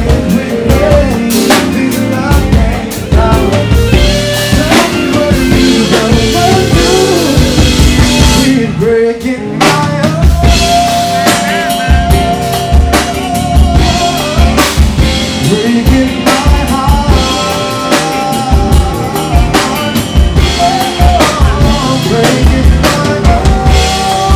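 Live band playing an R&B song: a drum kit keeps a steady beat with kick and snare under guitar and a male lead vocal. The band drops out briefly about nine seconds in, then comes back in.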